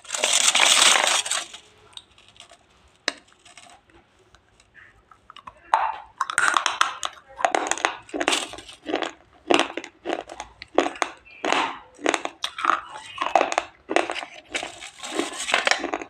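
Close-miked eating of a dry, crunchy food: a loud crunching burst at the start, a few quieter seconds, then steady chewing crunches at about two a second.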